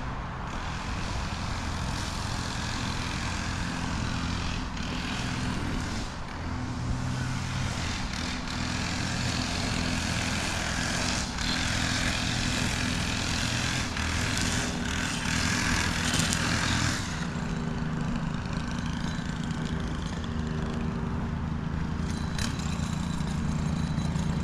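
A large engine running steadily in a low drone, under a noisy rush that drops away about 17 seconds in.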